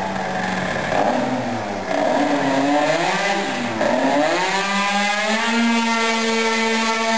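Tuned two-stroke scooter engine (Puch Zip with a Polini EVO air-cooled cylinder and Hebo Racing expansion exhaust) revved up and down several times, then held steady at high revs for the last couple of seconds.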